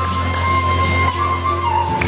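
Background music for the mime: a melody of long held notes that steps down in pitch near the end, over a steady low hum.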